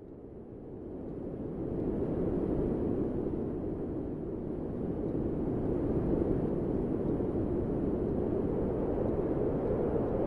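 A steady low rumbling noise fades in over about two seconds, then holds level.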